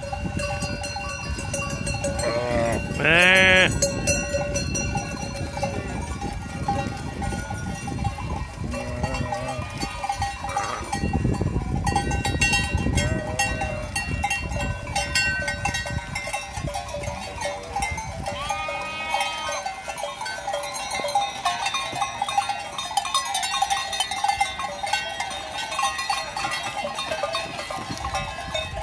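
A large flock of sheep and goats milling past close by, with bells ringing steadily among them and animals bleating now and then; the loudest bleat comes about three seconds in.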